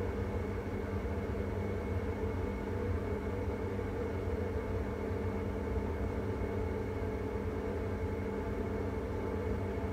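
Worcester Bosch Greenstar 4000 gas combi boiler running at near full burner output while heating hot water: a steady hum with several constant tones over a low rumble.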